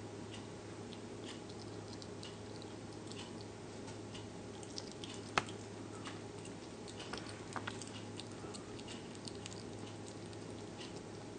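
Slow loris chewing a piece of fruit: small, irregular wet clicks of biting and chewing, with one sharper click about halfway. A steady low hum runs underneath.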